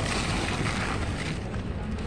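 Wind buffeting the microphone with a steady low rumble, over the rustle of a large flock of feral pigeons crowding and flapping as they feed on scattered grain.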